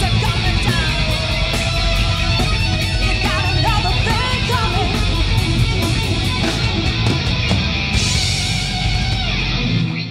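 Live hard-rock band playing loud, with distorted electric guitars, bass and drums keeping a steady beat. The music stops abruptly at the very end.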